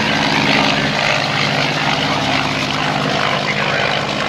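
Piston-engined propeller aircraft running with a steady drone that holds its pitch, easing off a little after about three seconds.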